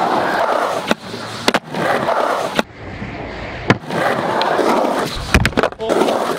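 Skateboard wheels rolling over smooth concrete, a rushing rumble that swells and fades as the rider carves, broken by several sharp clacks of the board, with a quick cluster of clacks and a low thump a little past the five-second mark.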